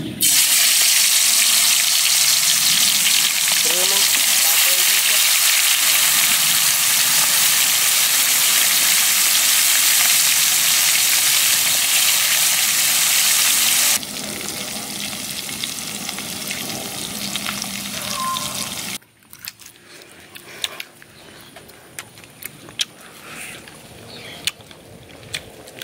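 Pork ribs dropped into hot oil in a wok, setting off a loud, steady deep-frying sizzle. The sizzle drops to a lower level about halfway through, and for the last several seconds gives way to quieter scattered clicks.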